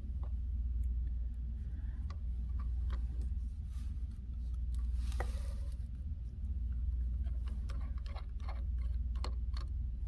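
Small irregular ticks and clicks of a T4 Torx precision screwdriver working a tiny laptop screw, coming more often in the last few seconds. A steady low hum runs underneath.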